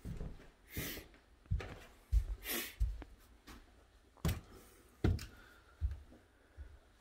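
Footsteps of a person walking across a carpeted floor: a soft thud about every three-quarters of a second, with two short breaths close to the microphone in the first few seconds.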